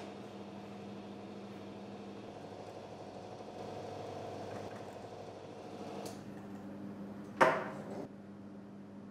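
Small handheld electric motor of a model-maker's rope-making machine running steadily, twisting thin strands into miniature rope; its hum shifts in tone for a couple of seconds midway. A sharp knock near the end.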